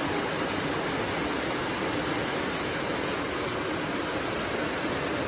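Steady rushing noise of torrential rain and fast-flowing floodwater, even and unbroken throughout.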